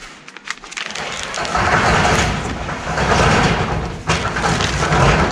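Plastic bag crinkling and a purse rustling as gloved hands rummage through them close to the microphone, starting about a second in.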